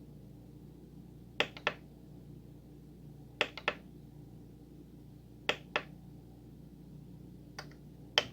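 Front-panel buttons on a Korg N264 keyboard clicking in pairs about every two seconds, as they are pressed while paging through sound parameters. A faint steady hum lies underneath.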